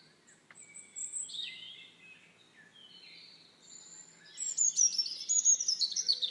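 Birds chirping and tweeting: short, high whistled notes, then a faster, louder run of falling chirps from about four seconds in.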